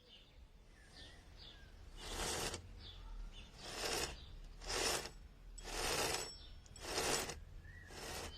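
Six rasping strokes, each about half a second long and roughly a second apart, beginning about two seconds in, with birds chirping faintly.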